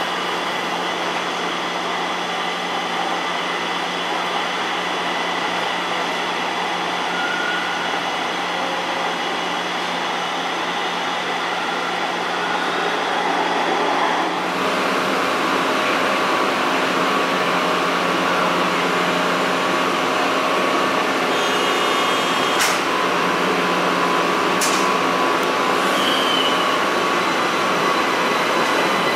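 Interior running noise of a light rail car in a subway tunnel: a steady hum under a constant rush. The rush grows louder and brighter about halfway through, and a few sharp clicks come near the end.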